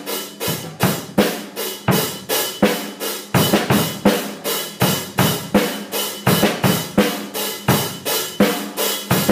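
A drum kit beat played in a steady, even rhythm of about three hits a second, with bass drum, snare and cymbal strokes.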